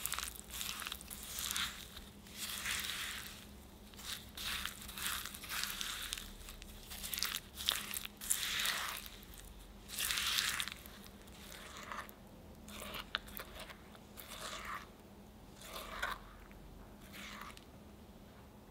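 Silicone spatula stirring diced strawberries with granulated sugar in a glass bowl: irregular crunchy scraping strokes, one every half second to a second, growing sparser near the end as the sugar dissolves into syrup.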